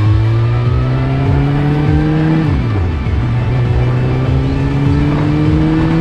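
Suzuki GSX-R1000's inline-four through an Akrapovic full exhaust, accelerating: the pitch climbs steadily for about two and a half seconds, drops sharply at a gear change, then climbs again. Music plays underneath.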